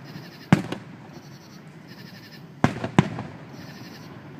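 Aerial fireworks going off: three loud booms, one about half a second in and two close together near the end, each trailing off in a brief echo.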